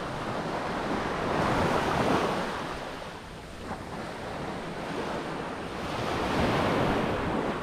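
Sea waves washing in on the shore, two surges about four seconds apart, with wind buffeting the microphone.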